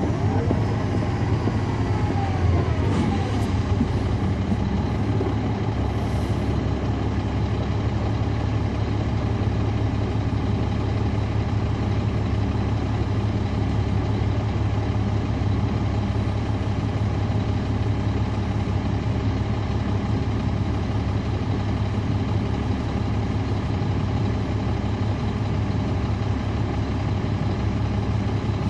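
Caterpillar C13 ACERT diesel engine of a 2009 NABI 416.15 (40-SFW) transit bus, heard from on board, running steadily with no rise or fall in pitch. A faint falling whine comes in the first few seconds.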